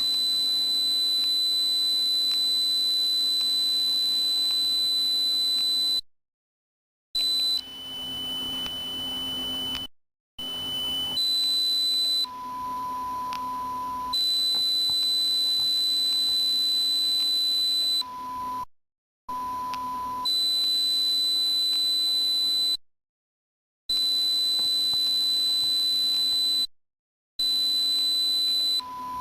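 Electronic tinnitus-masking sine tones: a steady high-pitched beep tone that now and then switches to a slightly lower tone or a much lower one, broken by short gaps of complete silence.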